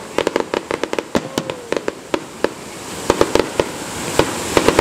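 Aerial fireworks going off: a rapid string of sharp bangs and crackles that thins out after about two and a half seconds, then a few louder bangs over a growing hiss near the end.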